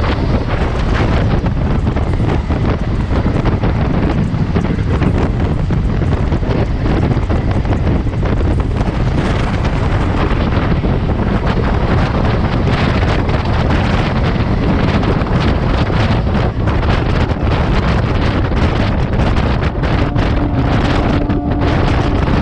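Heavy wind buffeting on the microphone over the rumble of an EMU local train running at about 85–90 km/h, with the Vande Bharat Express overtaking on the next track. A steady tone joins near the end.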